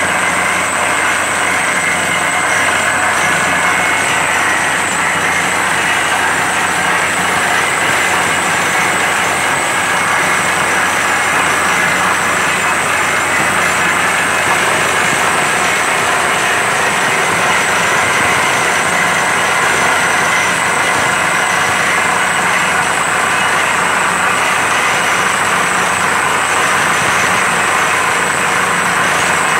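Truck-mounted borewell drilling rig running steadily as it drills, with rock dust and cuttings blowing out of the borehole.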